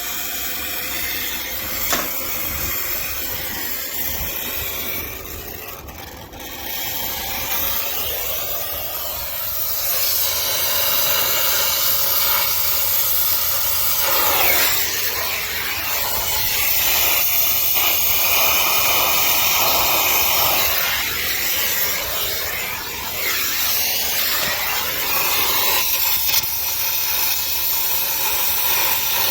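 Brazing torch flame hissing steadily while a copper refrigerant line is brazed, with nitrogen flowing through the line. The hiss gets louder about a third of the way in.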